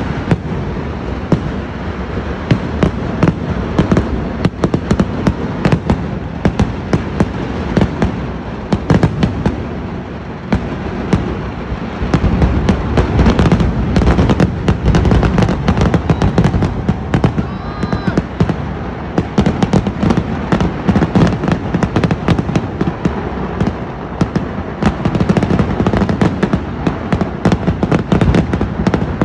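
Fireworks barrage (vedikkettu): rapid, overlapping bangs over a constant rumble, growing heavier about twelve seconds in.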